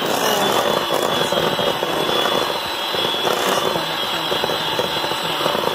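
Handheld electric mixer running at a steady speed, its beaters working butter, sugar and eggs in a glass bowl, with a steady high motor whine.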